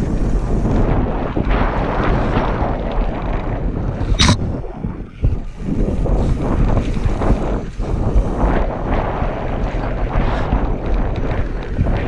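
Wind buffeting the microphone over the rumble and crunch of a downhill mountain bike's tyres on loose, sandy dirt and stones. A brief high squeak cuts through about four seconds in.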